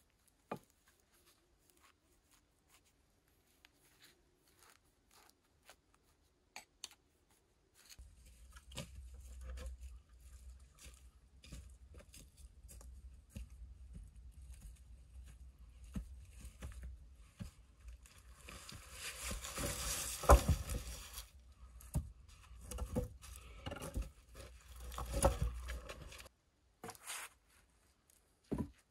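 Crunching and rustling of dry leaves and twigs, starting as a few faint clicks and turning about a third of the way in into a continuous crackle over a low rumble. The crackle is loudest about two-thirds of the way through and again shortly after, then stops a few seconds before the end.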